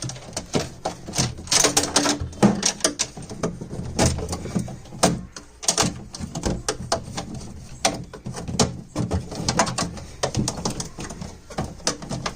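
Irregular clicks, knocks and rattles of a refrigerator's plastic panels and fittings being handled and pulled free during dismantling.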